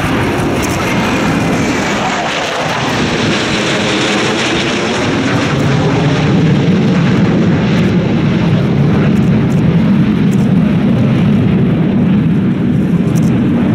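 Jet engine noise from a formation of six Chengdu J-10 fighters flying past, a steady rushing rumble that grows louder and deeper about six seconds in as the jets come closer.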